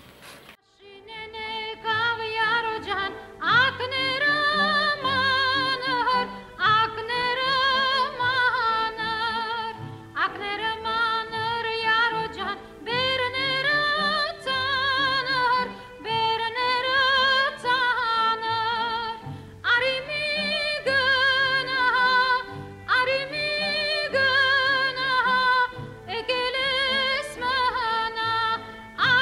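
Background music: a woman singing long phrases with a strong wavering vibrato over a low, steadily repeating instrumental accompaniment.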